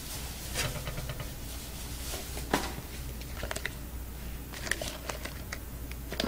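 Scattered light knocks, taps and rustles of objects being handled, over a steady low room hum. The sharpest knock comes about two and a half seconds in.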